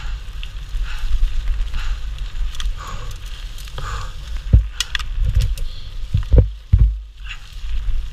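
Mountain bike descending fast on a gravel track: a steady low rumble with the crackle of tyres on loose gravel and the bike rattling. Heavy thuds come as the bike jolts over bumps, about four and a half seconds in and twice more between six and seven seconds.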